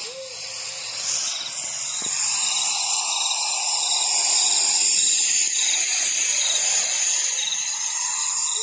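Insects chirping: a steady high drone with a faint, regular pulsing beneath it.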